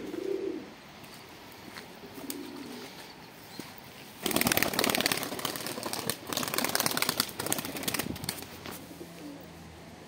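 Domestic pigeons cooing softly, then about four seconds in a pigeon takes off with loud, rapid wing flapping that lasts about four seconds.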